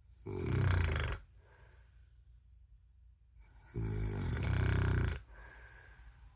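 A man snoring: two loud snores, the first about a second in and the second, longer one about four seconds in, with quiet breathing between.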